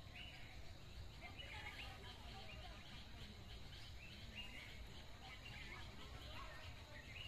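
Faint outdoor ambience: a steady low rumble with scattered distant bird calls, short chirps heard a few times.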